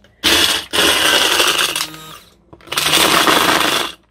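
Electric blender grinding peanuts into homemade peanut butter, switched on in three short bursts with brief stops between them. The middle burst winds down as the motor is switched off.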